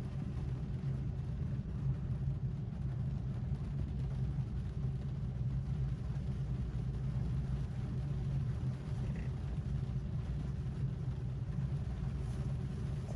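Rain on a car heard from inside the cabin, as a steady low rumble with a fainter even hiss above it.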